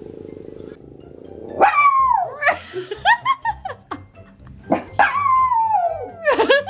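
Bichon frise barking and yelping: a low growl-like sound at the start, then from about one and a half seconds in a run of high barks, each sliding down in pitch, with a second burst near the end.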